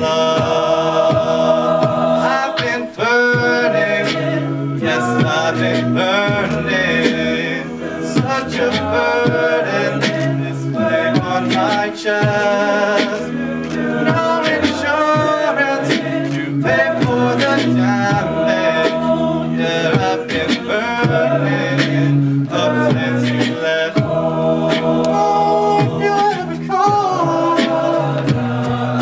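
Men's a cappella group singing a pop song arrangement in close harmony, with vocal percussion (beatboxing) keeping a steady beat under the voices.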